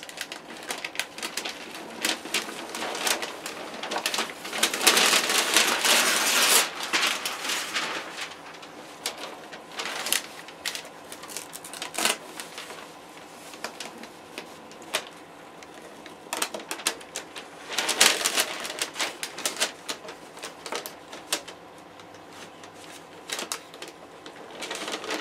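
Masking paper rustling and crinkling and masking tape being peeled off a freshly spray-painted wing surface: a run of small clicks and crackles, with two longer, louder stretches of rustling.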